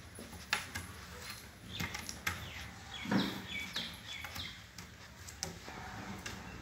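Long-coat German Shepherd puppy letting out short, high-pitched squeaks and whimpers, mixed with scattered clicks and scuffs as it scrambles on a tabletop.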